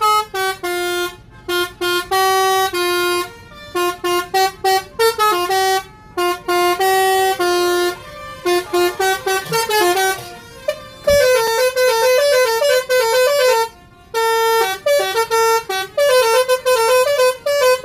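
Basuri multi-tone 'telolet' bus horn played by hand, sounding a tune of quick toots and longer held notes that step between several pitches, with short pauses between phrases.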